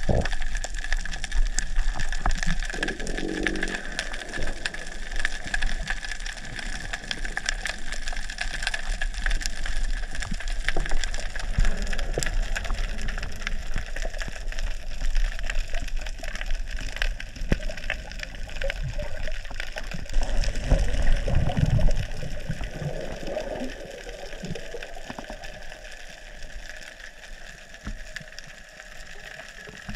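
Underwater sound through a waterproof action camera's microphone while freediving: a constant crackle of tiny clicks over a muffled hiss, with louder rushes of water past the camera a few seconds in and about two-thirds through. It grows quieter near the end.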